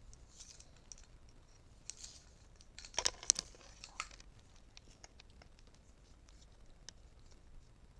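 Faint rustling and light clicks of close handling, with a brief louder rustle-and-scrape cluster about three seconds in.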